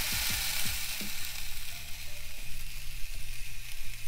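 Ribeye steak sizzling as it is pressed onto hot GrillGrates over charcoal for the sear at the end of a reverse sear. The sizzle is strongest at first and gradually eases, with background music and a low beat underneath.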